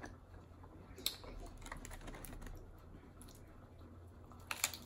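Close-up eating sounds: faint scattered clicks of chewing, then a quick burst of sharp crunches about four and a half seconds in as a crisp tostada shell is bitten.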